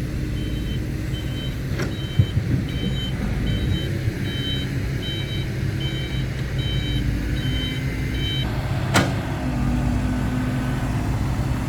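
Heavy diesel engine running steadily under a repeating high electronic reversing alarm, a little over one beep a second. The alarm stops about eight and a half seconds in, and a single sharp click follows shortly after.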